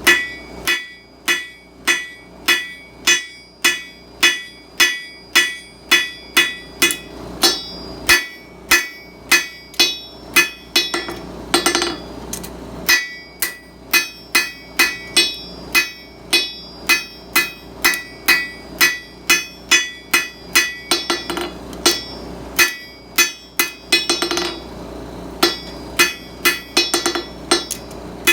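Blacksmith's hand hammer striking bar stock on an anvil while forging, a steady run of about two ringing blows a second, with brief pauses about twelve seconds in and again near the end.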